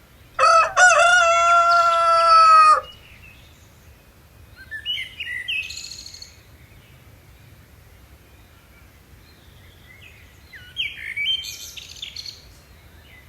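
A loud, drawn-out animal call of about two seconds near the start, then two short bursts of birds chirping, around five seconds and eleven seconds in.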